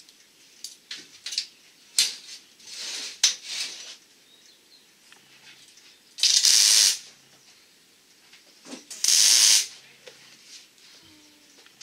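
Two bursts of pressurised spray hissing, each about a second long, about six and nine seconds in. Before them come light clicks and knocks of metal being handled and a softer hiss.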